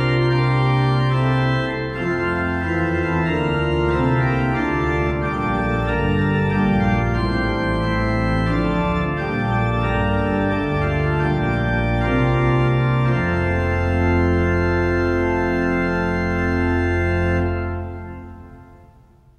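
Organ playing the closing chords of a sung canticle, ending on a long held chord that fades away near the end.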